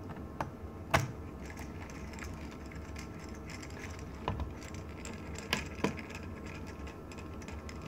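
A handful of sharp separate clicks and taps from the Dell Mini 910 netbook being handled and reassembled, the loudest about a second in, over a steady low hum.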